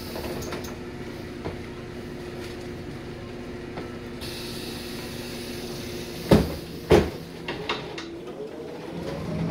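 City bus's two-leaf passenger doors closing over a steady idling hum: a hiss of air about four seconds in, then two heavy thuds a little over six seconds in as the leaves shut, with a few lighter clicks after. Near the end the engine note begins to rise as the bus moves off.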